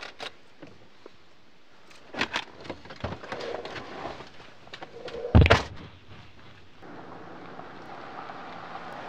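Clicks and knocks of a car door being opened, then a car door slammed shut with a loud thunk about five seconds in, followed by a steady outdoor hiss.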